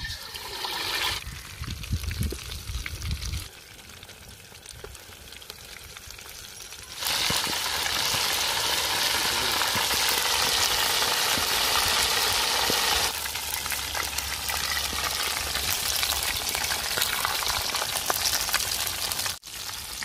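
Whole marinated quail deep-frying in hot wood-pressed groundnut oil in an iron kadai, the oil sizzling and bubbling. A burst of sizzle as the quail goes in at the start, then the frying grows suddenly louder about seven seconds in and eases a little about thirteen seconds in.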